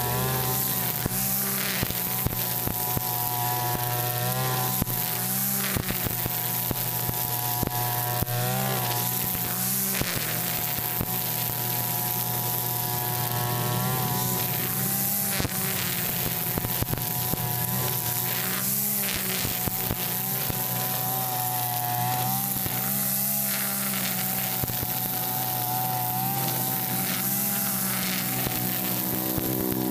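Mitsubishi backpack brush cutter with a nylon trimmer line head, running and cutting grass. The engine note shifts up and down in pitch over a steady hiss from the spinning line.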